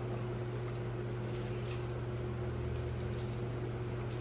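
Steady mechanical hum with a constant low drone, like a running shop fan or air unit, with a few faint light clicks of handling.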